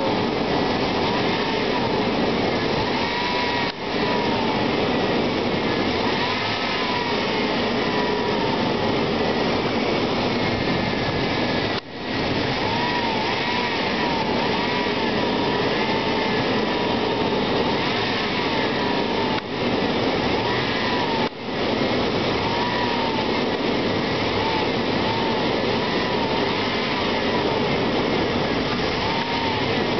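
Stock 4.3-litre V6 engine idling steadily while it warms up after being started. It is just barely running.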